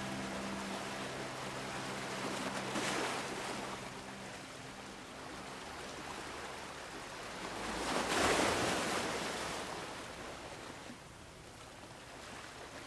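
Sea waves washing, swelling twice, loudest about eight seconds in, then dropping lower near the end. A held music chord dies away over the first few seconds.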